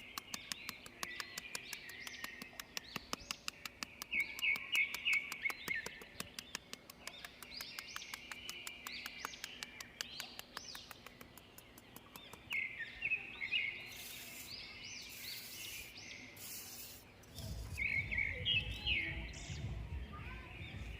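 Small birds chirping and twittering, with a fast even ticking of about five a second that stops about eleven seconds in. A few short hisses follow, then a low rumble near the end.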